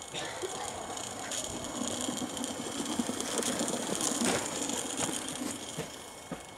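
Small live-steam SM32 narrow-gauge garden-railway locomotive running along the track, pushing a snowplough through snow: a steady rattling mechanical sound with small clicks, growing louder to its loudest about four seconds in as it passes close, then easing.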